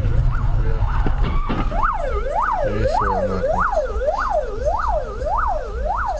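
Emergency vehicle siren in a fast yelp, its pitch sweeping up and down nearly twice a second, fainter at first and steady from about two seconds in, over the low rumble of a moving car.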